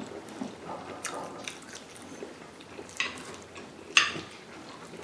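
Chewing, with a metal spoon clinking and scraping against a ceramic plate as rice is scooped up: a few sharp clinks, the loudest about four seconds in.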